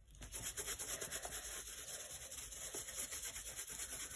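Paintbrush scrubbing acrylic paint through a plastic stencil onto a glossy book page: a steady dry rubbing made of quick, repeated small strokes.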